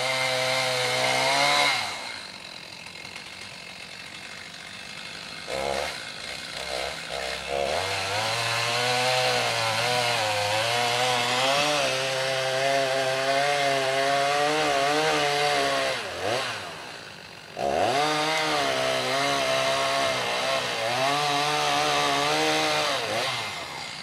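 Two-stroke chainsaw with a 28-inch bar cutting into a large dead tamarack trunk. The engine runs at full throttle, its pitch wavering under load. It drops to idle about two seconds in, is blipped a few times, then goes back to full-throttle cutting from about eight seconds, with a short drop in revs about two-thirds of the way through.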